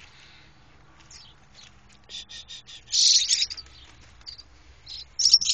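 A week-old baby bird chirping in short, high cheeps: a quick run of about four around two seconds in, a louder cluster just after three seconds, and a few more near the end.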